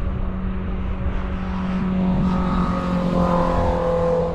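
A motor vehicle's engine passing on the road, its pitch rising and then falling slightly toward the end, over a steady low hum.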